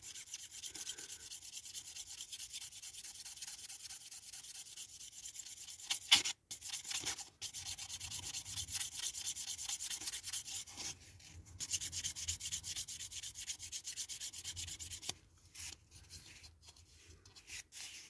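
Nail buffer block rubbed in rapid back-and-forth strokes over a clear plastic window unit from a diecast model, buffing scuffs out of the glazing. There is a sharp click about six seconds in, and the rubbing turns softer and broken near the end.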